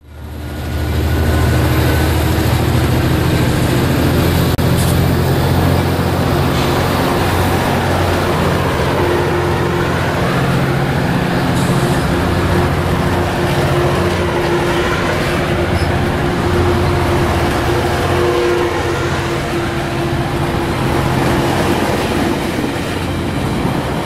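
Metrolink commuter train departing, its bilevel coaches rolling past with steady wheel and rail noise over a low hum. The sound fades in over the first second.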